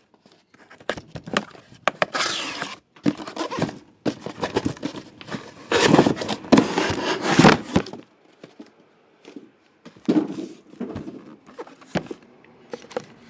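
Cardboard case being handled and opened, with rustling, scraping and tearing of cardboard and packing and small knocks, in uneven bursts. It is loudest about two seconds in and again from about six to eight seconds.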